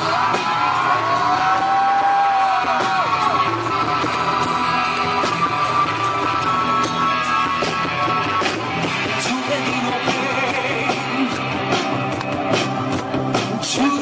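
A Bengali rock band playing live: a steady drum beat and bass with singing over it.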